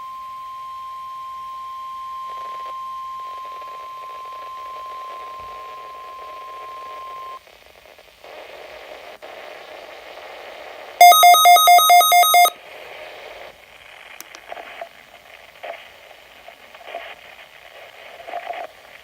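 NOAA Weather Radio 1050 Hz warning alarm tone, a steady single high tone sounding a required weekly test, cuts off about seven seconds in and leaves faint radio hiss. About eleven seconds in comes a much louder burst of rapid electronic beeping lasting about a second and a half.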